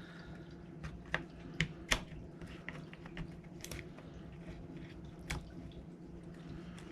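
Small metal parts of an airsoft gas-blowback rifle's trigger group clicking and tapping as a stiff spring is worked into the lower receiver: a few sharp clicks close together about a second in, and a few more later.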